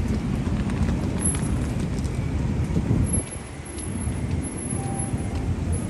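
City street ambience: a low, rumbling din of traffic and street noise with faint scattered clicks, dropping away briefly about three seconds in before building back.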